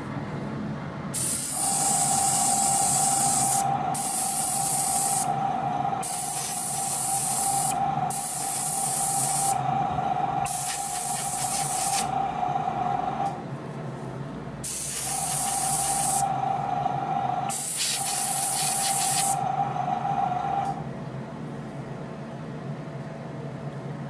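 Gravity-feed airbrush spraying Tamiya paint in about seven separate bursts of hiss, each lasting one to two seconds, with a steady mid-pitched whine under most of them. The spraying stops a few seconds before the end.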